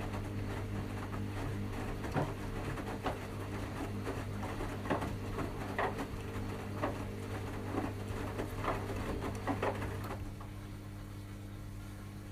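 Washing machine drum turning on a delicates wash, its motor humming steadily while wet laundry drops and slaps inside in irregular knocks about once a second; the drum stops turning about ten seconds in, leaving a lower hum.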